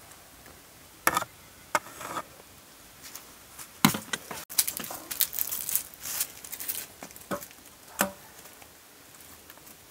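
Handling sounds of food preparation: a spatula and utensils clicking and knocking against a metal mixing bowl and dishes. The knocks are scattered, with a busier run of clicks in the middle and a last sharp knock about eight seconds in.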